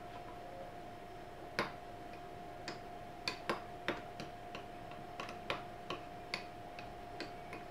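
A spoon clinking against a glass mixing bowl while stirring thick slime: about a dozen sharp, irregular clicks, starting about a second and a half in.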